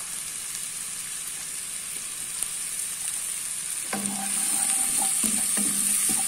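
Sliced mushrooms and chopped onions sizzling as they fry in a nonstick pot. About four seconds in, a wooden spatula starts stirring them, with light scrapes and knocks against the pot, and the sizzle gets louder.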